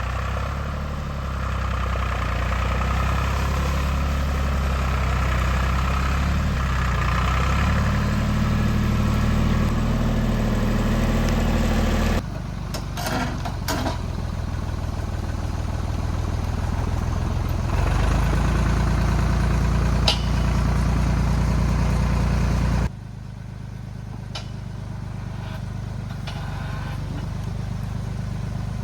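Tractor engine running steadily under load, pulling a chained log. Its pitch and level change abruptly a few times, with a few sharp knocks around the middle.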